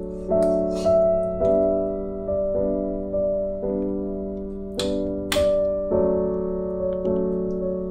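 Background piano music: sustained keyboard notes struck every half second or so and left to ring and fade. Two pairs of brief hissing hits cut in, about half a second in and again about five seconds in.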